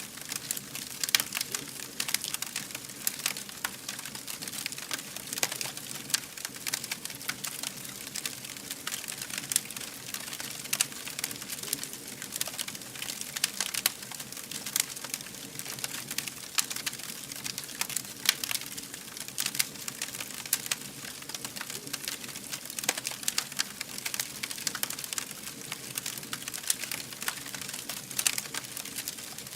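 Fire burning with a steady stream of dense crackles and sharp pops over a soft hiss.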